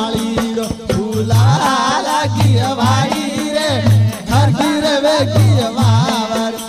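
Marwari devotional bhajan music: an ornamented melody gliding over a steady drone, with a low drum stroke repeating about every second and a half.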